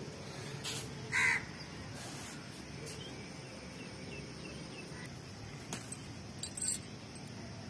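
A crow caws once, loudly and briefly, about a second in, over a faint steady outdoor background. Near the end come a few light clicks and rustles of plants being handled.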